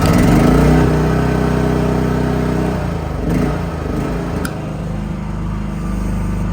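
The Briggs & Stratton gas engine of an AGT QH12 mini excavator running just after starting, with the throttle set partly up. It is loudest in the first second, then settles into a steady run. Its note changes briefly about three seconds in, and a sharp click comes a little after four seconds.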